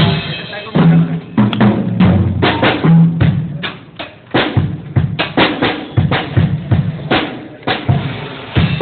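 Drum kit being played live at a sound check, with kick and snare hits in an uneven run of strikes. A few held low bass notes sound in the first three seconds.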